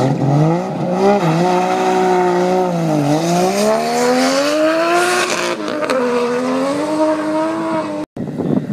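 Turbocharged drag car launching hard off the line and accelerating away. The engine pitch climbs steeply, then drops back and climbs again several times as it changes up through the gears. The sound cuts off abruptly near the end.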